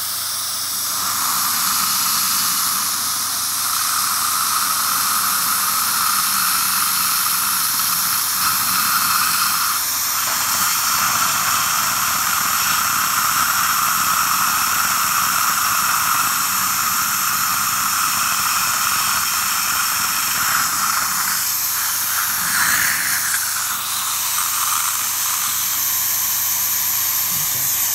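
Dental implant surgical handpiece drilling into jawbone with a cylindrical bur, giving a steady whine from about a second in until roughly three quarters of the way through. A continuous hiss of suction and irrigation spray runs under it.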